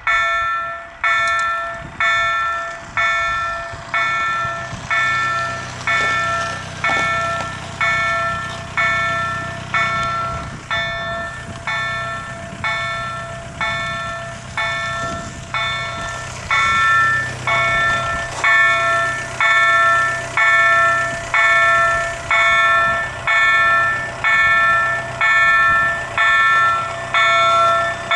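Warning bell of a Bombardier SSP category B automatic level-crossing system, striking about once a second with the barriers down: the signal that a train is approaching. A low steady hum runs underneath from about four seconds in.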